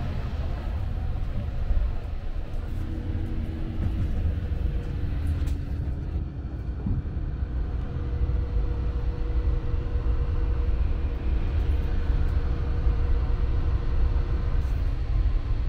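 Steady low rumble and hum inside a Sunrise Express sleeper train car, a 285 series electric train. A faint steady tone joins in about three seconds in.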